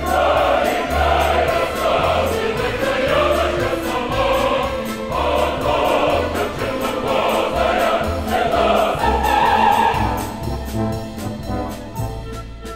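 Mixed choir singing with a symphony orchestra and a button accordion, over a regular bass beat; the music thins out and gets quieter in the last few seconds.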